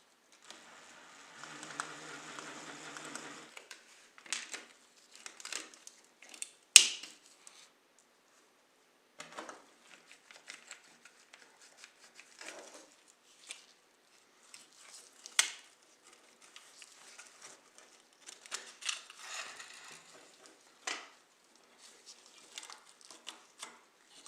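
Hands and small tools working on a model car: scattered clicks, taps and scrapes of metal and plastic parts, with a short steady buzzing stretch about a second in and a couple of sharp clicks later.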